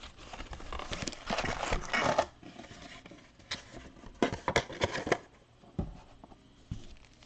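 Foil-wrapped trading card packs rustling and crinkling as they are handled, loudest from about one to two seconds in, followed by a few sharp taps and clicks.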